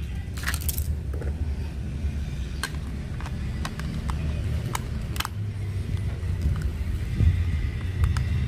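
Hard plastic toy parts clicking and snapping as the pieces of a toy space shuttle are pressed together in the hands, a handful of sharp clicks, over a steady low rumble.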